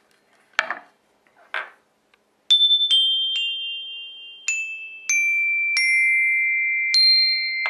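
Two brief handling knocks, then a homemade xylophone of tuned aluminium rods struck with a mallet seven times from about two and a half seconds in. It plays a descending run of bright notes, each ringing on long and overlapping the next, then one higher note near the end. Rubber bands under the rods damp the long sustain only a little.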